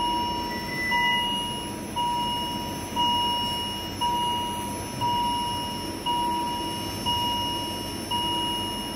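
Steady electronic beeping from cardiac catheterisation lab equipment: one long, even-pitched beep about every second, each starting sharply, over a low background hum.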